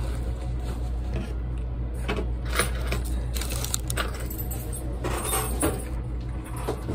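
A person biting into and chewing a breaded chicken sandwich, with scattered short crackles and rustles over a steady low hum.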